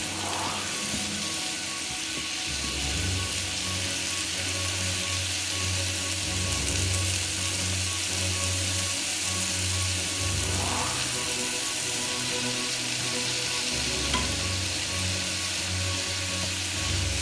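Chopped vegetables sizzling steadily in a hot frying pan while a wooden spoon stirs them.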